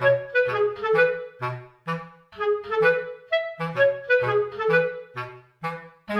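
Background music: a melody of short, detached notes over a low bass line in a steady rhythm.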